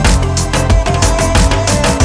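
Loud electronic background music with a steady, driving beat.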